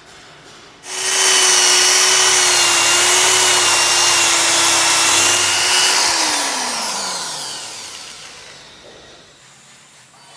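A handheld power tool starts about a second in and runs at a steady whine with a loud hiss. About six seconds in it is switched off, and its pitch falls and fades as it spins down.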